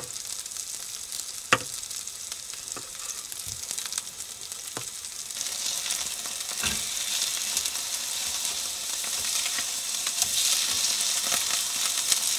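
Turkey burger patties sizzling in a frying pan, the sizzle growing louder about halfway through, with a few sharp knocks in the first half.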